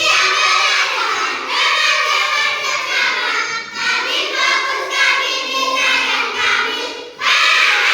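A group of children singing a song together in unison, in phrases of one to two seconds, with a brief break about seven seconds in.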